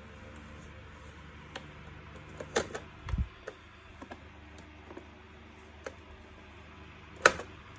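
Scattered sharp plastic clicks and knocks as a screwdriver pries at the plastic housing of an Electrolux UltraOne Z8810W vacuum cleaner while its air pressure hoses are being disconnected. There is a dull thump about three seconds in, and the loudest click comes near the end.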